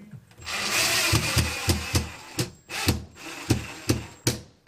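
Cordless drill-driver driving a screw into a plywood tool rack. The motor runs for about four seconds, with a series of sharp knocks at uneven spacing.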